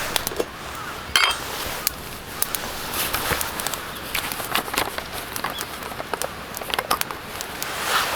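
Wood campfire crackling, with irregular sharp pops over a low hiss and one louder knock about a second in.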